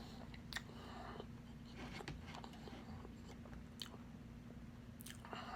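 Close-miked chewing of a mouthful of pork adobo: soft wet mouth sounds with scattered small clicks and smacks. A faint steady hum runs underneath.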